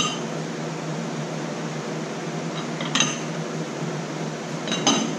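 Three short metallic clinks, at the start, about three seconds in and near the end, as bait molds and tools are handled on a workbench, over a steady fan hum.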